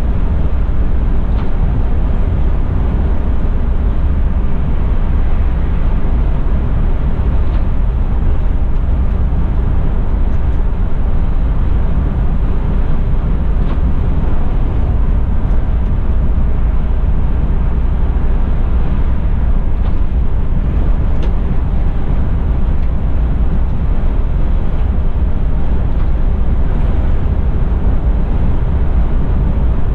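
Steady cabin noise of a Mercedes-Benz Tourismo coach cruising on the motorway: engine drone and tyre noise on a wet road.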